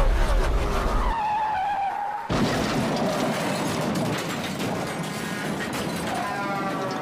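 Racing-car sound effects: a deep rumble at first, a high squeal, then from about two seconds in a noisy run of engine and tyres, with a rising revving whine near the end.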